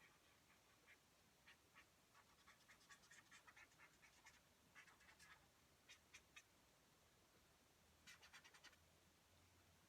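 Black marker scratching faintly across paper in quick strokes, coming in three bursts with short pauses between.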